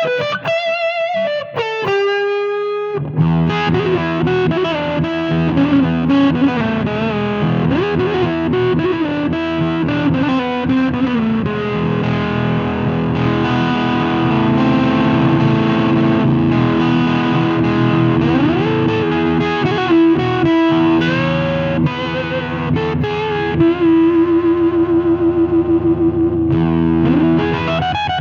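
Electric guitar played through the Cardian Effector C6H8O6 'Vitamin C' fuzz pedal. A few bent single notes come first; about three seconds in, a thick fuzz-distorted passage of chords and riffs begins. Near the end there is a fast run of one repeated picked note.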